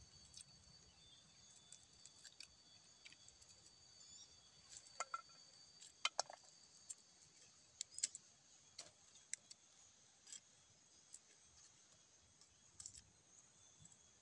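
Faint, scattered knife clicks as bawang (onion-family bulbs) are sliced by hand, a few sharper taps among them. A steady high insect drone carries on underneath.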